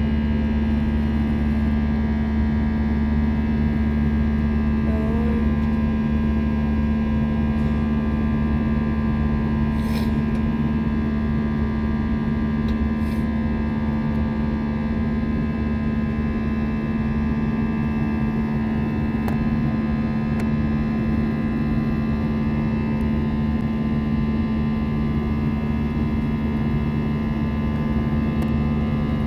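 Steady drone of an airliner's engines heard inside the passenger cabin: an unbroken low hum with several constant tones above it.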